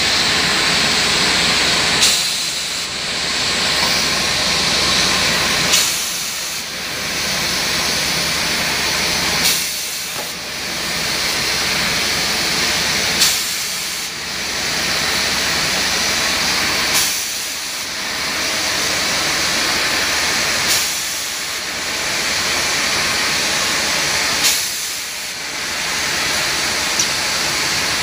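Automatic rotary beer bottle filling machine running, a steady hissing, rushing noise with a sharp click-like burst about every four seconds.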